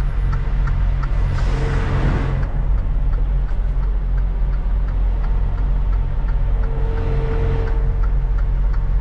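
Semi-truck diesel engine running steadily, heard from inside the cab, with a faint regular ticking over it. A short rush of air hiss comes a second and a half in.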